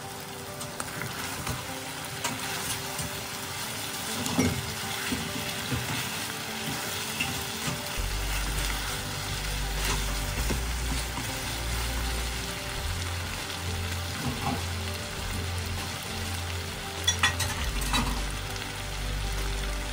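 Chicken pieces sizzling as they fry in a non-stick wok, stirred and turned with a spatula. A few sharp knocks about four seconds in and again near the end.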